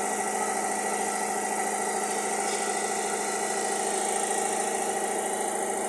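Toyota Hilux running with a steady mechanical hum, even in level throughout.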